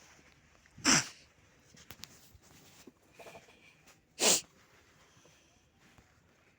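A person sneezing twice, about three seconds apart, with faint small clatter between the sneezes.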